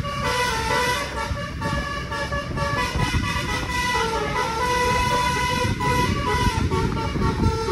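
A bus's basuri multi-tone musical horn playing a tune in held notes that step from pitch to pitch. A low wind and road rumble runs underneath.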